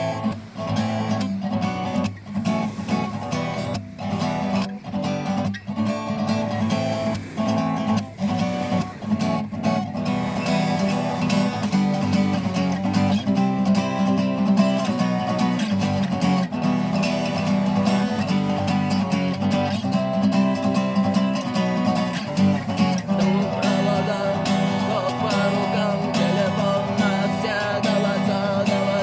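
Instrumental guitar music led by a strummed guitar, broken by short gaps during the first ten seconds and then running steadily without vocals.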